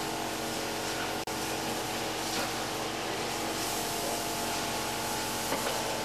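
Steady hiss with an even, multi-toned hum under it. It cuts out briefly about a second in.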